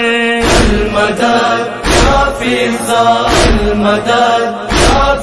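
Backing chorus of a Shia noha chanting a slow, held refrain between the reciter's verses, over a deep thump about every second and a half that keeps the lament's beat.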